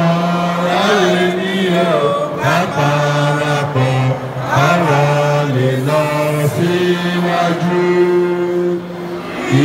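A group of men and women singing an anthem together in unison, in slow, held notes, with a man's voice leading through a microphone and PA.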